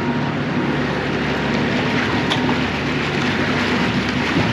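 A boat engine running steadily, a low hum under a wash of wind and water noise.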